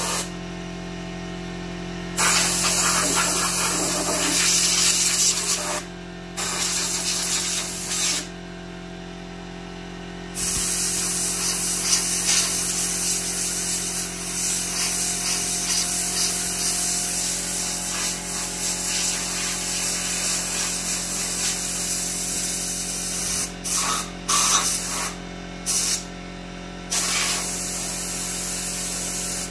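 Hissing spray switched on and off: bursts of a few seconds, then one long run of about twenty seconds, then short blasts near the end, over a steady low hum. It is the sound of cleaning out a chainsaw bar.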